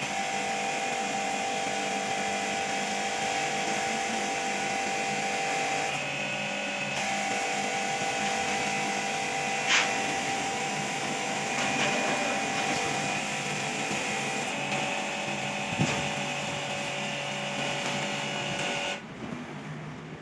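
A machine running steadily with a whine of several held tones and two sharp clicks, then cutting off suddenly near the end.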